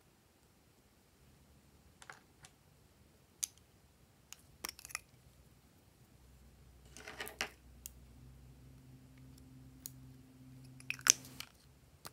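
Scattered small clicks and taps of plastic lipstick and lip balm tubes and caps being handled and pulled open. A short rustling scrape comes about seven seconds in, and a quick run of clicks near the end.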